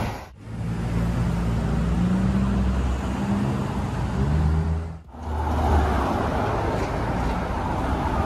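Street traffic: a motor vehicle's engine running with a low steady hum, then general road noise after a brief drop in sound about five seconds in.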